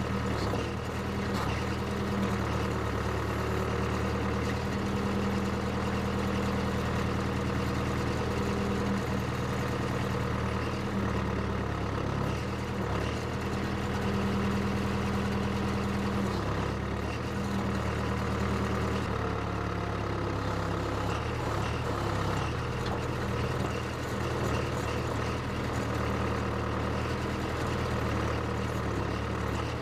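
Case 580CK backhoe's engine running at a steady speed, its pitch shifting a little around the middle.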